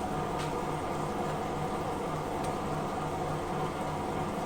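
Steady mechanical hum like a fan or small motor running, with a couple of faint light clicks.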